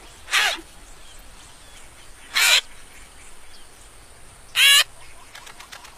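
Cartoon nestlings calling: three short, high cries about two seconds apart, the last one wavering up and down in pitch. Faint chirping birds and insects in the background.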